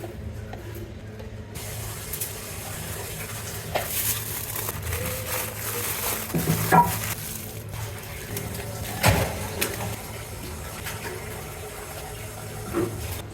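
Food sizzling in a frying pan as it is stirred, a steady hiss that starts about one and a half seconds in. A few sharp knocks of a utensil against the pan sound over it.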